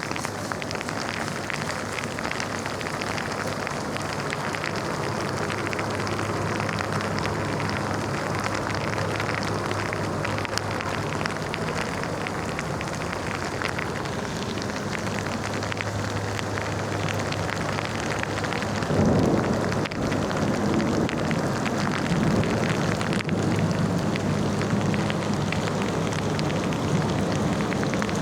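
Heavy rain falling steadily, with a steady low hum underneath. About two-thirds of the way in, a louder low rumble swells up and carries on to the end.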